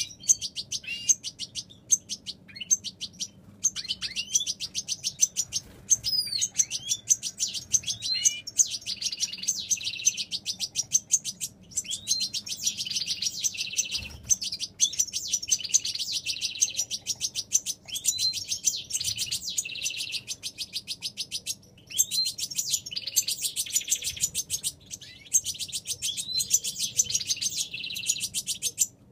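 Young European goldfinches begging to be fed by the parent bird: a fast, nearly continuous string of high chirping calls, broken by short pauses and mixed with rising and falling swooping notes.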